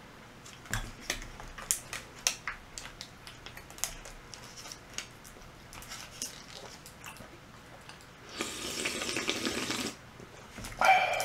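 Eating sounds: light scattered clicks and taps of chopsticks and chewing, then a steady rush of liquid being poured for about a second and a half near the end.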